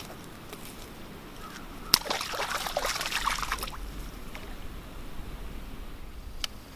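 A sharp click, then water splashing and sloshing for about a second and a half, starting about two seconds in.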